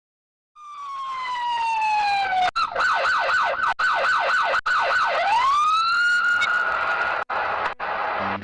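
Electronic police-style siren: a tone that falls slowly, then switches to a fast up-and-down yelp of about three to four sweeps a second, then climbs and holds a steady high note, cut by a few brief dropouts.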